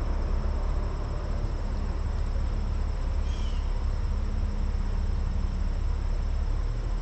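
Steady rushing outdoor background noise, heaviest in the lows, with a faint thin high insect drone. A single short bird chirp comes about three seconds in.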